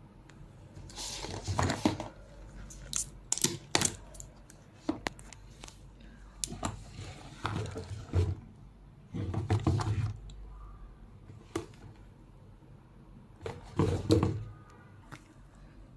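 Handling noises from unboxing a handbag: irregular rustling and crinkling of packaging, with scattered clicks and light knocks.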